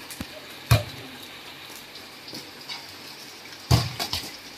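Steady hiss of heavy rain, with two sharp slaps of a volleyball being hit, just under a second in and again near the end, followed by a couple of lighter knocks.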